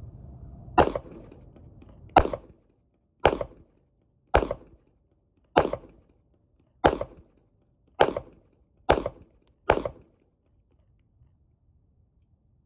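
Springfield XD-M Compact .45 ACP pistol fired nine times at a steady pace of about one shot a second, the last few a little quicker. Each is a sharp crack followed by a short echo.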